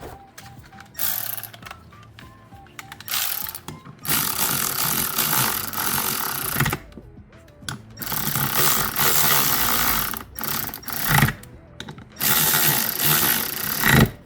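Ratchet wrench clicking in about five spells of one to three seconds each, tightening hardware on a rebuilt power steering pump, with background music underneath.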